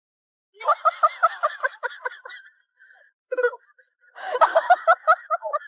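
A person laughing in rapid, pitched ha-ha pulses: two loud bouts, the second starting about four seconds in, with a short burst between them.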